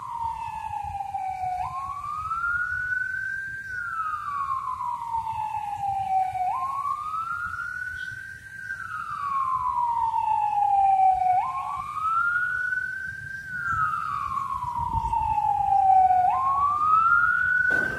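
A siren wailing in a slow repeating cycle about every five seconds: the pitch rises for about two seconds, falls slowly for about three, then jumps back up, four times over.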